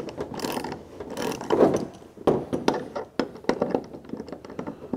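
Hand ratchet fitted with a 7/32 Allen bit tightening a ladder-rack clamp bolt: the pawl clicks in repeated strokes as the handle is swung back and forth.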